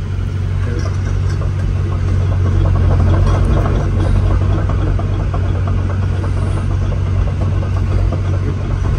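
CAT 313 GC excavator's diesel engine running steadily, heard from inside the cab. It grows a little louder about two seconds in.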